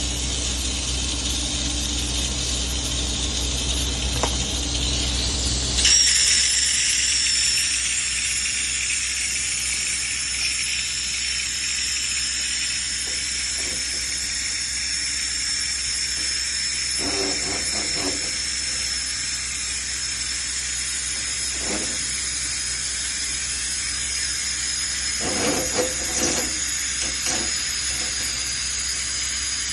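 Steady high hiss with a thin whistling tone in it. A low hum stops about six seconds in, and a few short knocks come later.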